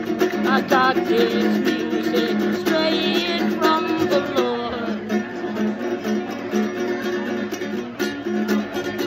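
Small-bodied acoustic guitar strummed quickly and continuously in a steady chord pattern, with a man's voice singing a wordless line over it near the start and again in the middle.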